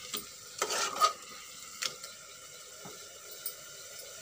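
A spatula scraping and clinking against the pressure cooker as the masala is stirred, most strongly in the first second, then a few lighter single taps, over the steady sizzle of the potatoes and onion-garlic-tomato paste frying on high flame.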